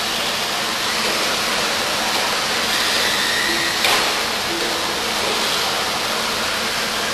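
Steady whirring hiss of radio-controlled model buggies running around the race track, with a brief sharp click about four seconds in.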